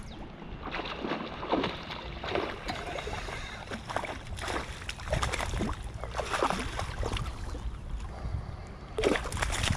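Hooked pike thrashing at the surface close to the bank, splashing the water again and again in bursts.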